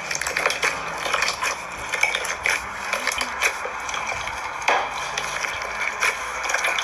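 Floam, slime packed with styrofoam beads, being worked and squished, crackling with a dense run of small clicks and pops over a hiss. It cuts off suddenly at the end.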